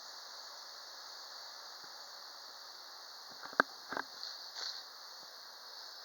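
Faint steady outdoor ambience with a high hiss. A single sharp click comes about three and a half seconds in, followed by two brief rustles.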